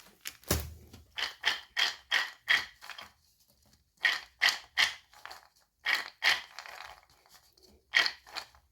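Raw peanuts being stirred with salt, a run of short crunching, scraping strokes about two or three a second, stopping and starting in clusters.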